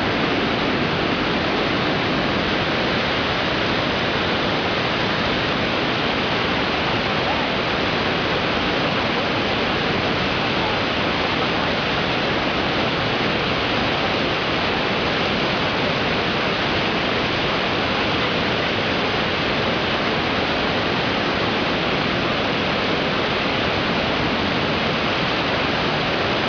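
Steady rush of fast-flowing water, an even hiss-like noise with no change in level.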